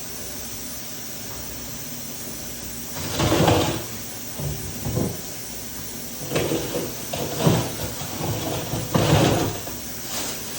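Things being slid and set in place inside a refrigerator during a clean-out: a few short sliding and bumping sounds over a steady background hiss, the loudest about three seconds in and again near the end.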